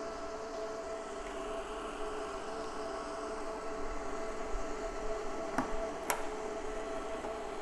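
Two sharp clicks, about five and a half and six seconds in, as cable plugs are pushed into the colour-coded rear ports of a Tecar Back S diathermy unit, over a steady electrical hum of several fixed tones.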